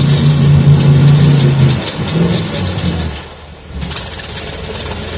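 Old Ford pickup's engine running hard at high revs as it churns through deep mud, with mud spattering; about two seconds in the revs fall away and the engine drops to a low, quieter run as the truck bogs down, stuck in the mud.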